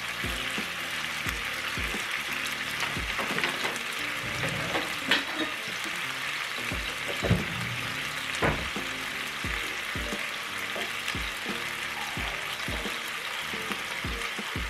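Korean spicy rice cakes and ramen noodles sizzling in a frying pan, with a few sharp knocks of a utensil stirring in the pan in the middle. Background music with a steady beat underneath.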